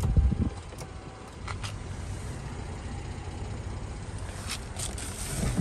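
Low, steady rumble of the Mercedes-Benz GLK 350's 3.5-litre V6 idling, heard from inside the cabin, with a few faint clicks.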